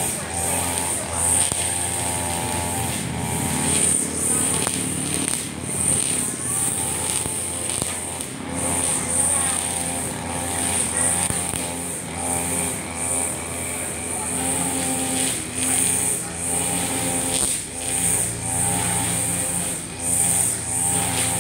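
Husqvarna 542RBS backpack brush cutter's two-stroke engine running at high speed while its 2.2 mm round nylon line cuts grass. The line's high whine swells and fades every second or two as the head is swept back and forth through the grass.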